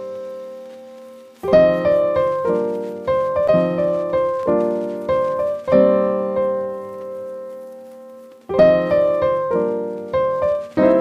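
Background piano music: chords struck in short phrases, each ringing and fading. About halfway through, one chord is left to die away for a couple of seconds before the playing resumes.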